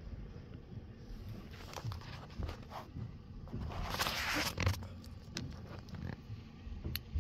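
Soft rustling and handling noise, with scattered small clicks and a louder scuffing rustle about four seconds in.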